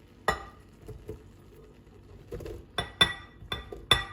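Sharp clinks and knocks against the Ninja Foodi blender's glass jug as mushrooms are tipped in: one about a quarter second in, then four close together near the end, each with a brief ring.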